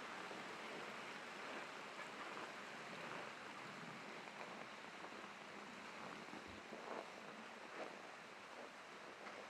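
Steady rush of river rapids, with faint, irregular crunching footsteps in snow.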